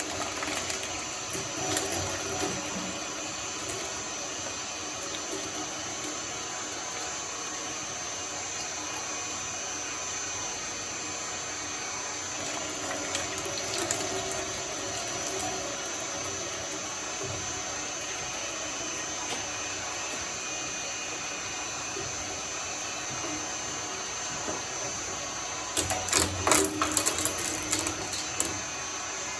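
Industrial shredder running steadily with a constant high whine, grinding slime, with a louder burst of crunching near the end.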